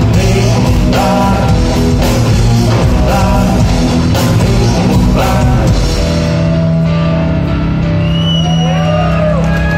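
Live rock band playing loud electric bass, guitar and drums. About six seconds in the drums stop and a low note is held, with notes bending up and down above it.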